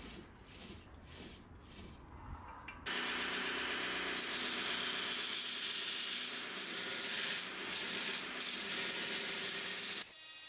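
Bandsaw running and cutting a wooden knife-handle scale: a steady sawing hiss that starts suddenly about three seconds in, gets brighter as the blade bites into the wood, and cuts off shortly before the end. Before it, faint ticks come about two or three times a second.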